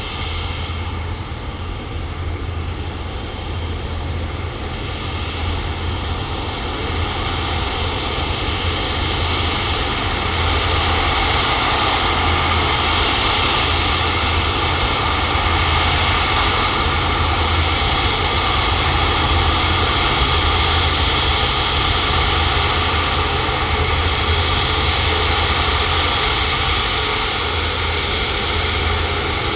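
Jet engines of an Airbus A350, Rolls-Royce Trent XWBs, running at high power: a steady roar with whining tones that grows louder over the first ten seconds and then holds.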